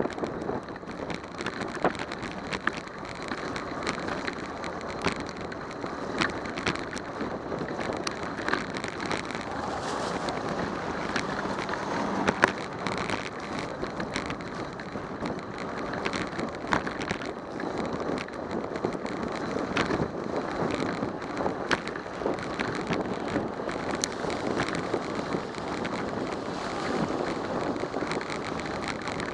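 Riding a bicycle on a rain-wet road, heard through a bike-mounted camera: steady wind on the microphone and tyres hissing on the wet pavement, with scattered sharp ticks throughout.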